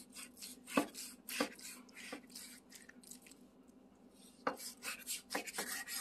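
Kitchen knife trimming fat from a raw brisket, its blade cutting and knocking against a bamboo cutting board in sharp, irregular strokes, with a quieter stretch in the middle.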